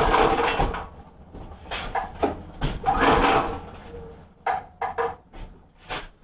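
Recoil pull-starter on the backhoe's small gas engine being yanked twice, each pull a rough whirring rasp about a second long, with shorter knocks and clicks of the rope and handle between; the choked engine cranks over but does not fire.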